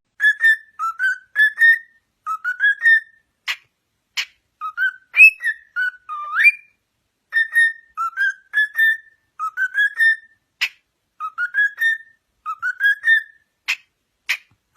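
Pet parrot whistling a tune in short repeated phrases of clear rising notes, with a few sharp clicks between the phrases.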